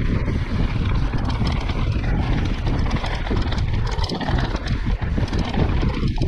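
Heavy wind buffeting an action camera's microphone on a fast mountain-bike descent. Through it come the bike's steady rattling and knocks from the rough trail.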